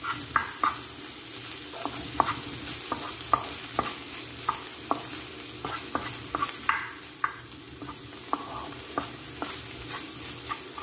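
Wooden spatula stirring and tossing shrimp, sausage and mixed vegetables in a hot pan: irregular knocks and scrapes of the spatula, about two a second, over the steady sizzle of frying.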